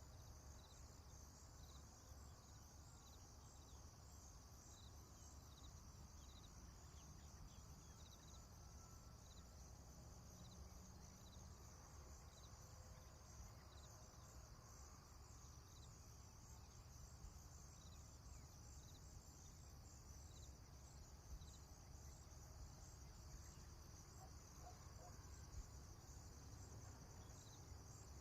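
Faint rural morning ambience: a steady high-pitched chirping chorus, with a slower chirp repeating about once a second through the first half, over a low rumble.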